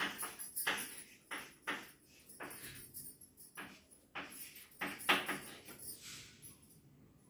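Chalk writing on a blackboard: an irregular run of short taps and scratches, one for each stroke of the chalk.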